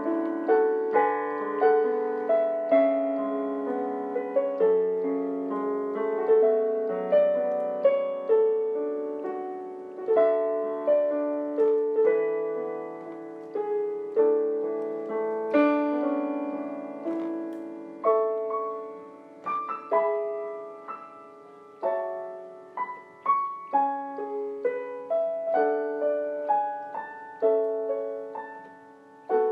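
Solo piano music: notes and chords struck one after another, each fading away after it sounds.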